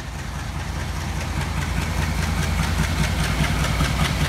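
ALCo 251C V16 turbo diesel engine of a WDP3A diesel-electric locomotive running as the locomotive rolls slowly past: a low rumble with a fast, even beat over it. It grows louder over the first second and a half, then holds steady.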